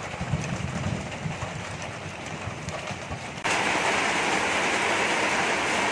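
A low rumble, then a little over halfway through an abrupt switch to a loud, steady hiss of rain.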